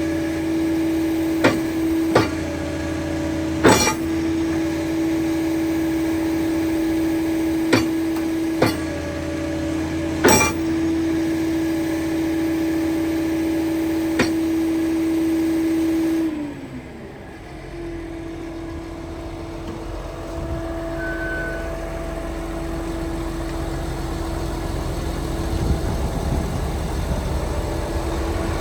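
Liebherr PR756 bulldozer: a steady machine hum with a handful of sharp clicks, then a little over halfway in the hum falls away briefly and a low diesel rumble sets in and runs on at idle.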